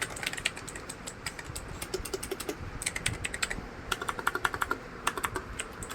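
Typing on a Cosmic Byte Vanth (CB-GK-27) mechanical keyboard with clicky Outemu Blue switches: a quick, uneven run of sharp key clicks.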